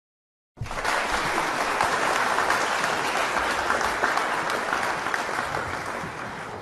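Crowd applause that starts suddenly about half a second in and slowly fades toward the end.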